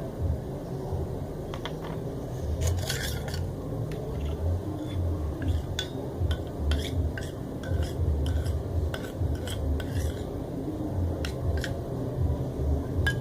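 A spoon stirring and scraping a thick lotion-and-glitter mixture in a bowl, with irregular light clinks of utensil against the bowl over a low handling rumble.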